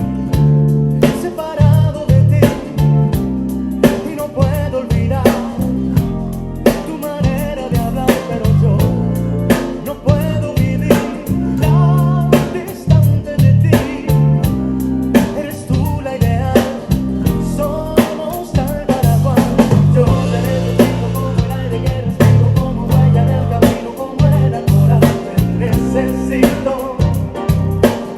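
Ken Smith CR5 five-string electric bass playing a line of changing low notes over a backing track with a drum kit.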